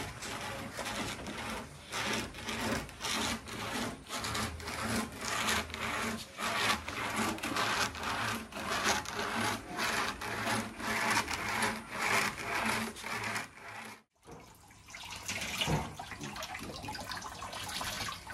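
A section of sago palm trunk is scraped back and forth over a nail-studded wooden grater, rasping in quick repeated strokes as the pith is shredded. After a sudden break near the end come softer sounds of wet grated sago being worked by hand in a basket over water.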